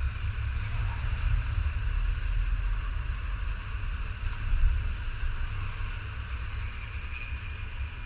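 Hot-air rework station blowing steadily: a rushing hiss over a low rumble, as it heats a voltage regulator chip on a TV mainboard to change it.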